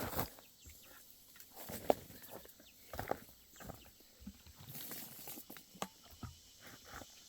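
Footsteps and scattered knocks and clicks from someone moving about and handling things at a chicken coop.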